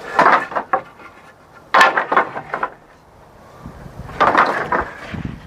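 Rough-sawn oak boards knocking and scraping against each other as they are lifted and restacked by hand, in three clattering bursts.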